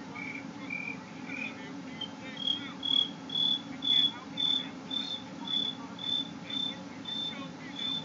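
A person imitating a cricket by whistling with the mouth: short, high chirps repeated about twice a second, after a few lower whistled notes at the start.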